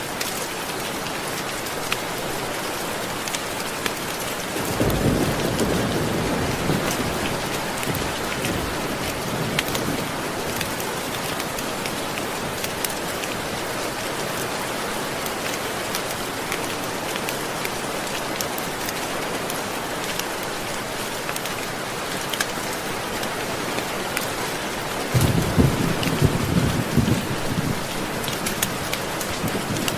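Steady heavy rain hissing, with two low rolls of thunder: one rumbling in about five seconds in and fading over several seconds, and a stronger one starting near the end.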